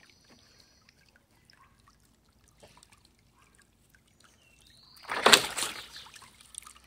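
Water splashing in a small dog pool as the dog moves in it: a single splash about five seconds in that fades over a second or so, after a few faint drips.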